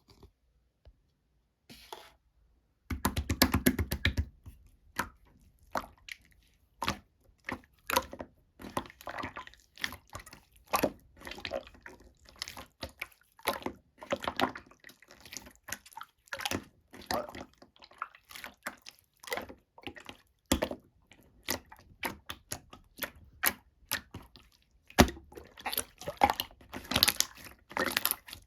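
Slime being squished and pressed by hand, making irregular wet, sticky clicks and pops, with a quick run of rapid crackles about three seconds in and denser clicking near the end.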